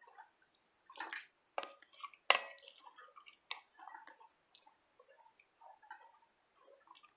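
Spoon stirring broth into a flour roux in a pan, the thickening liquid sloshing and splashing in short irregular bursts, with a sharp knock of the spoon against the pan a little over two seconds in.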